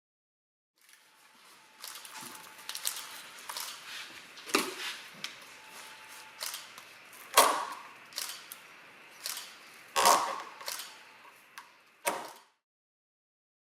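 Irregular clicking, knocking and scraping of hand work with tools and materials, with four sharper knocks spread through it and a faint steady tone during the first half.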